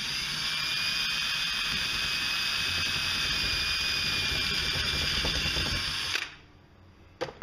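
Electric drill running steadily for about six seconds with a 1/4-inch bit, drilling the stripped threads out of a chainsaw cylinder's bolt hole, then stopping; a short click follows near the end.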